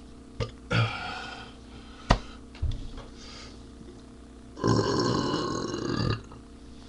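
A man belching after chugging beer: one long, loud belch of about a second and a half near the end, after a few sharp clicks and knocks.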